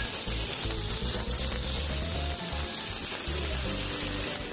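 Slices of beef sizzling on a hot zhizi grill plate, a steady hiss, with background music over it.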